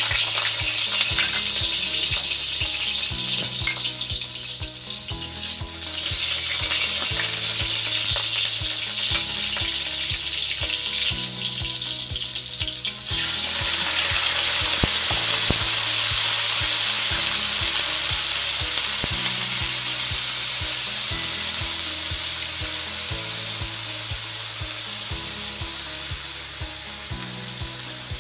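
Oil sizzling in a hot wok as garlic and ginger fry. About 13 seconds in, pieces of pig trotter go into the wok and the sizzle turns louder, then slowly eases.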